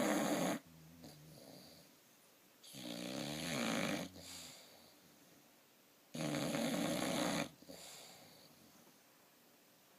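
Loud snoring: a rasping snore about every three and a half seconds, three in all, with quieter breathing between.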